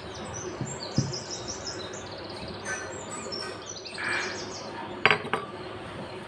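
A small stainless steel bowl set down on the table with a sharp metallic clink just after five seconds in, after a dull knock about a second in. Birds chirp quickly and repeatedly in the background.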